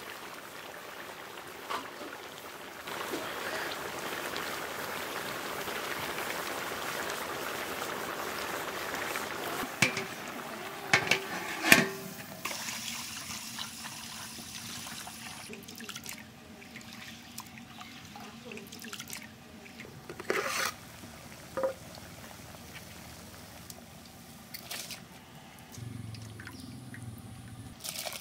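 Water poured from a jug onto rice in an aluminium bowl, splashing as the rice is washed, with a few sharp knocks midway.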